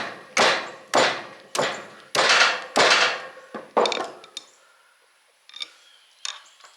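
Hammer blows on steel, about six in quick succession at roughly one every half to two-thirds of a second, knocking wire coils out of the slots of an electric motor's stator stack. The blows stop about four seconds in, and a couple of light taps follow near the end.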